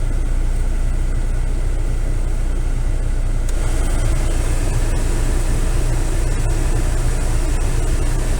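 VW Golf Mk4 idling with the air conditioning running: a steady low engine hum under the rushing air of the A/C blower. The blower's hiss gets stronger about three and a half seconds in.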